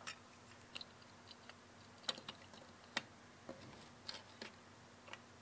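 Light clicks and taps of die-cast toy vehicles, a small truck, trailer and car, being handled and set down on a wooden tabletop: about eight short, sharp clicks at irregular intervals.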